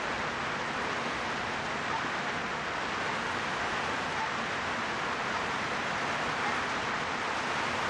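Steady, even hiss of background noise with no distinct events in it.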